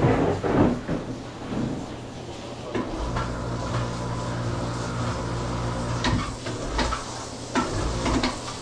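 Metal clanks and knocks, with a steady low hum for about three seconds in the middle.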